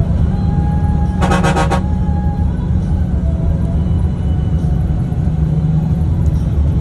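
Steady low engine and road rumble heard inside a moving coach bus, with a vehicle horn sounding in a quick stuttering burst of about half a second just over a second in.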